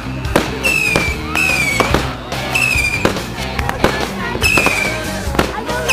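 Fireworks going off: a rapid string of sharp bangs and crackles, mixed with repeated short whistles that dip slightly in pitch.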